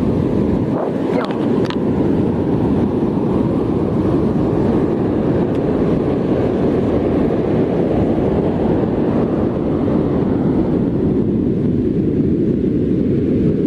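Strong wind rumbling on the microphone, mixed with the wash of heavy surf breaking on the beach: a steady, loud noise with no pauses.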